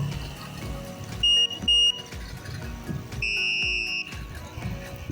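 Electric bicycle horn and anti-theft alarm sounding: two short, loud, high beeps about a second in, then a longer, buzzier high tone lasting about a second, over background music.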